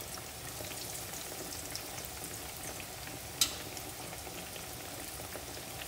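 Breaded eggplant slices deep-frying in oil heated to about 375–400°F, a steady sizzle with fine crackling throughout. One sharp click about halfway through, from the metal tongs.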